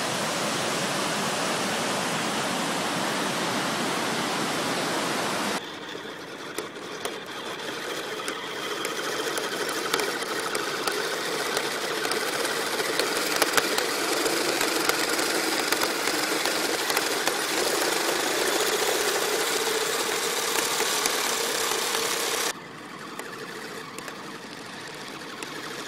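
Electric motors and gears of a Kyosho Blizzard SR radio-controlled tracked model running, a mechanical whine that rises and falls in pitch with small clicks. For the first five seconds or so there is only a steady rushing hiss, and about 22 seconds in the sound drops suddenly to a quieter run.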